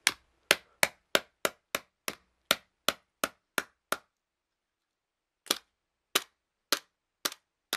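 Hammer blows on a small plastic vibrating pager unit, struck to break its case open. There is a quick run of about a dozen sharp strikes, about three a second, then a pause and five more slower blows. The case does not give.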